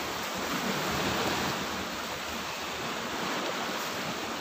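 Steady rush of sea surf, mixed with wind.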